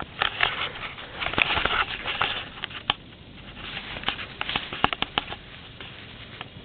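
A pet rabbit moving about its pen: bouts of rustling and scattered light taps and clicks, busiest in the first two and a half seconds and again from about four to five seconds in.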